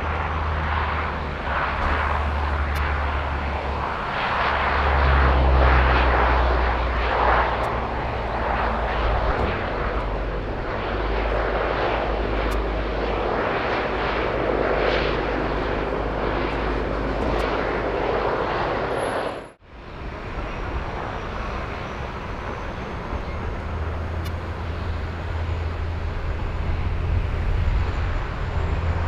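Airliner engines, a steady rushing rumble that swells and fades as an aircraft passes. Two-thirds of the way through, the audio cuts out for a split second just after a short high blip, which fits the interference an LED billboard causes on the external mic.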